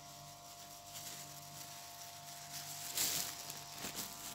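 Faint handling noise as a samosa pastry cone is held and filled, with a short rustle about three seconds in and a couple of small clicks after it, over a steady faint electrical hum.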